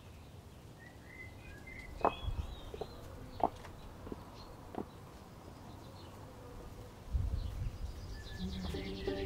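Quiet garden ambience with a few short bird chirps and three or four soft knocks. Low music comes in near the end and builds.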